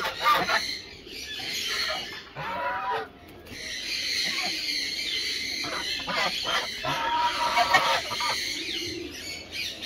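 Several white domestic geese honking and chattering, a quick run of short calls from more than one bird, with a brief lull about three seconds in.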